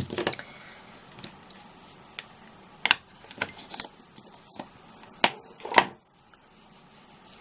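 Irregular small clicks and knocks of craft tools and paper being handled and set down on a work desk, about ten sharp taps spread over the stretch, a few in quick clusters.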